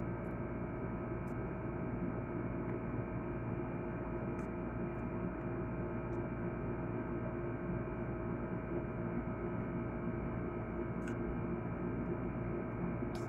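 A steady hum made of several constant tones, with a few faint clicks scattered through it.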